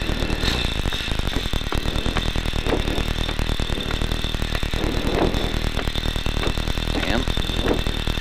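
Rally car engine idling at a standstill, heard from inside the cabin, with a steady high tone over it.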